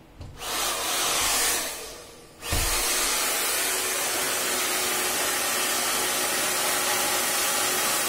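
Hand-held hair dryer switched on for a test after its broken power cord has been repaired: it runs with a steady rush of air, cuts out about two seconds in, then comes back on with a thump half a second later. It keeps running evenly, without the crackling of the fault.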